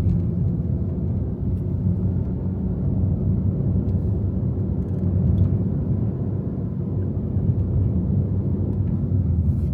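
Steady low rumble of a moving car's engine and road noise.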